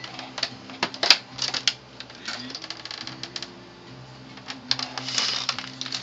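Plastic clicking and snapping as an LCD monitor's glossy plastic housing is pried apart at its retaining clips, with a stretch of scraping about five seconds in.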